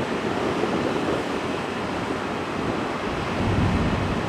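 Steady rushing noise of wind blowing across the microphone, with a low rumble building slightly near the end.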